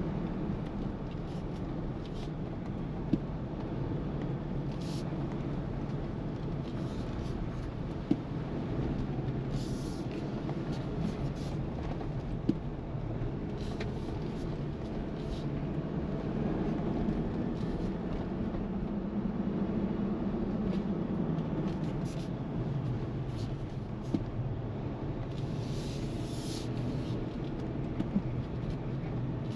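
Driving noise of a 2023 Jeep Wrangler Rubicon, with its 2.0-litre turbocharged four-cylinder petrol engine, heard from the driver's seat. A steady engine and road hum rises and falls slowly in pitch as it drives, with a few sharp clicks.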